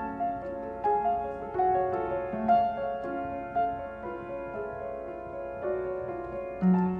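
Slow, soft piano music, with notes struck about once a second and left to ring.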